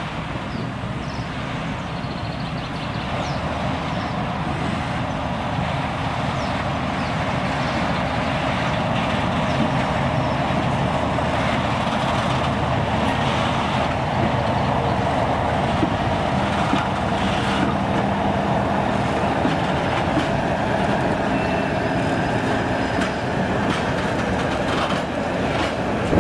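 A train passing on the rails: a steady rumble of wheels and wagons that grows louder over the first ten seconds and then holds.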